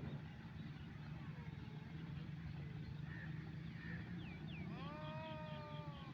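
A sheep gives one long, even bleat near the end, over a steady low engine-like hum, with a few short bird chirps just before it.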